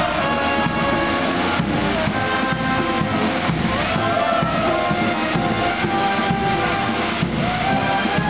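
Music playing: sustained instrumental tones over drum hits.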